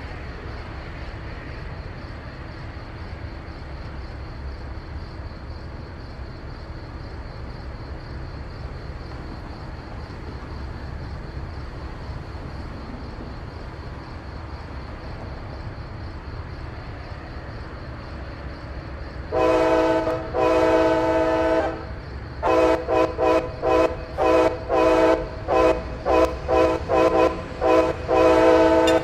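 Amtrak train horn playing a horn show: after a steady low rumble from the train, the multi-chime horn sounds two long blasts, then a rapid run of short toots, about two a second, lasting to the end.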